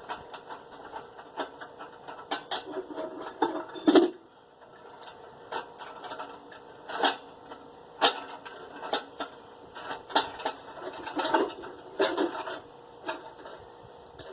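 Metal parts and hand tools clicking, clinking and knocking as a stuck part with its nut and spacers is worked loose from an engine, with one louder knock about four seconds in.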